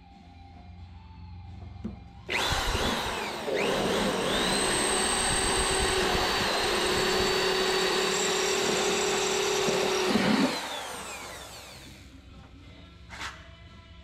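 Corded electric drill starting about two seconds in, whining up to speed and running steadily for about eight seconds while drilling into aluminium sheet, then spinning down with a falling pitch.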